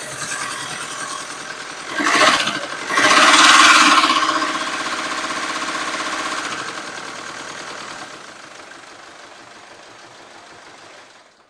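Mercedes Sprinter engine running with an abnormal noise, which the mechanic hears as coming from the top end. The suspects are camshaft and hydraulic lifter trouble, with big-end bearing failure as the other option. It gets much louder twice, about two and three seconds in, then eases off and fades.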